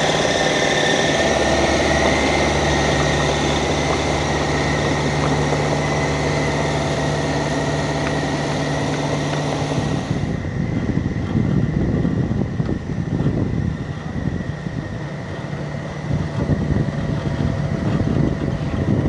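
Heavy diesel engine of earthmoving machinery running steadily with a high whine. About ten seconds in, the sound changes and a rougher, gusty noise takes over.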